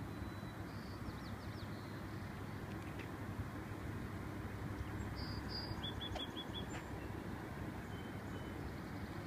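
Steady low outdoor rumble with small birds chirping over it: a quick run of four falling notes about a second in, then a series of five short chirps about six seconds in.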